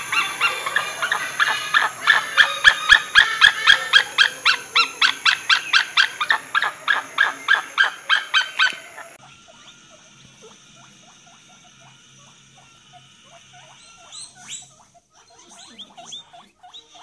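Red kite calling: a fast run of whistled, mewing notes, about five a second, that stops about nine seconds in. Faint high squeaks follow.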